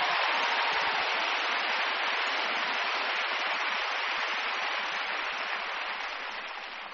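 Steady applause from a large congregation, a dense wash of clapping that dies down near the end.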